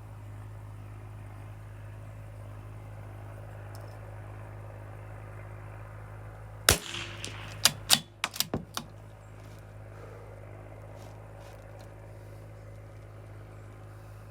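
A single shot from a CZ457 bolt-action .22 rimfire rifle. About a second later comes a quick run of about six sharper clicks. A steady low hum sits underneath throughout.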